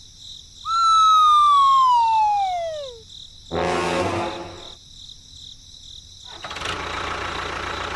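A comic falling sound effect: one long pitched tone sliding steadily downward for about two and a half seconds. A short low buzzy tone follows a second later, and a steady hiss starts a few seconds on.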